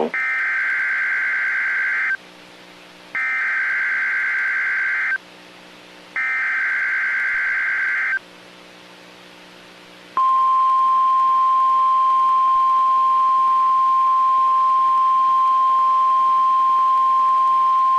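NOAA Weather Radio Emergency Alert System alert: three bursts of warbling SAME digital header tones, each about two seconds long with a second's pause between, then the steady 1050 Hz warning alarm tone starting about ten seconds in. It signals the broadcast of a severe thunderstorm watch.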